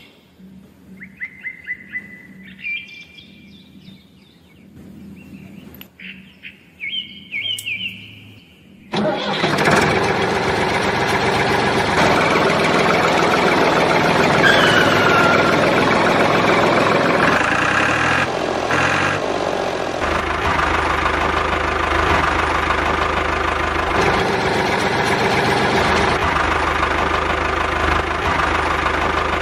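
A loud, steady motor sound starts suddenly about nine seconds in and keeps running while the miniature model tractor drives along. Before it there are a few short bird chirps.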